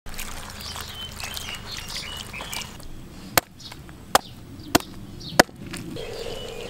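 Four sharp chops of a knife through a lizard carcass onto a wooden chopping board, a little over half a second apart. Small birds chirp in the background before the chopping starts.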